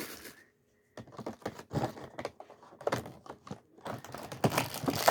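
Handling of Lego pieces and their plastic packaging: a rapid run of small clicks and crinkly rustles, starting after a short pause about a second in and busiest near the end.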